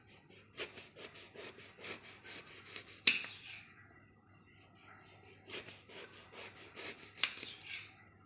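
Knife slicing a brinjal (eggplant) into thin rounds, the blade knocking the board at about four strokes a second. Two runs of cuts, each ending in a sharper knock, with a pause of about two seconds between.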